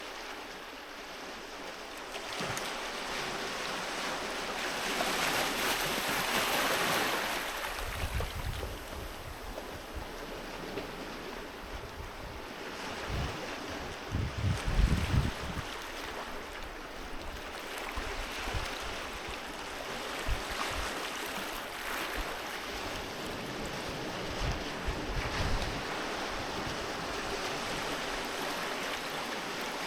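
Sea waves washing onto a beach, a steady surf rising and falling with a swell cresting about six seconds in. Wind buffets the microphone in low thumps through the middle, strongest around halfway.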